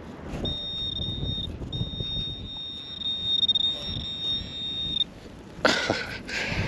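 A metal detector giving a high, steady target tone: a short tone, a brief break, then one long tone of about three seconds that cuts off about five seconds in. Wind rumbles on the microphone throughout, and a short rush of noise comes near the end.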